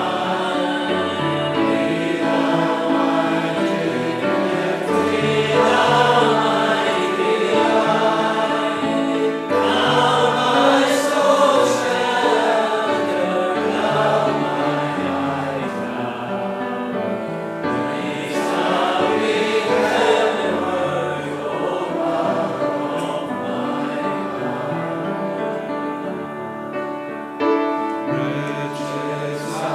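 Church congregation singing a hymn together.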